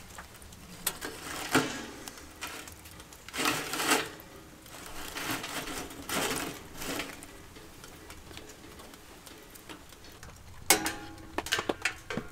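A firewood log being pushed into the firebox of a small stainless-steel wood stove: a series of wooden knocks and scrapes against the metal over the first several seconds. Near the end comes a cluster of sharp clicks with a short metallic ring.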